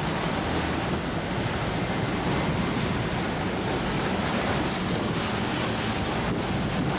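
Strong wind of over 40 knots rushing across the microphone over the steady wash of large ocean waves around a catamaran at sea.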